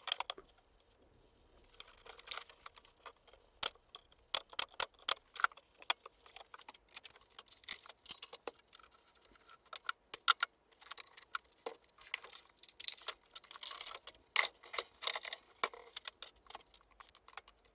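Scattered light clicks, taps and small rattles of hand work at a workbench: tools and pieces of wood or plywood being handled and set down. No power tool is running.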